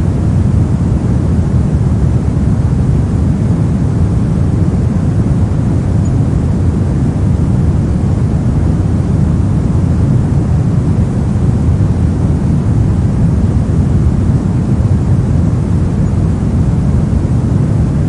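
Steady pink noise: an even, unchanging rush of noise, heaviest in the low range and thinning toward the highs.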